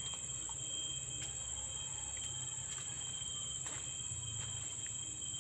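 Steady, high-pitched chorus of insects, two even tones held without a break, with a few faint clicks.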